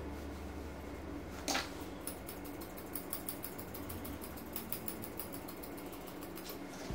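Grooming scissors snipping rapidly at a Bichon Frise's chin fur, a quick run of crisp snips that comes thickest from about two seconds in. A steady low hum sits underneath at the start and fades out.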